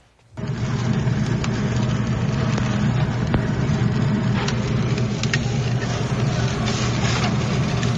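T-bone steak sizzling as it cooks, cooked to rare. A steady frying hiss with scattered sharp pops starts abruptly about a third of a second in.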